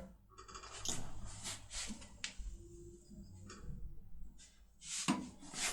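Faint scattered clicks and scrapes of a metal force rod being handled in a lock cylinder.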